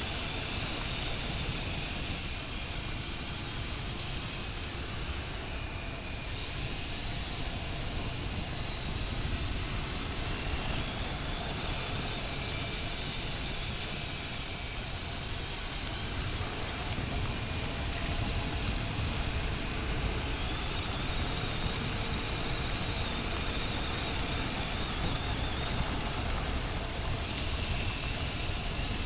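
Motorcycle on the move at a steady pace: continuous wind rush on the microphone with the engine and road noise underneath, no sudden changes.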